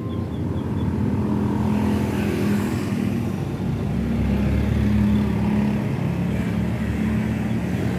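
Motor vehicle engine running steadily, its hum wavering slightly in pitch and growing a little louder toward the middle.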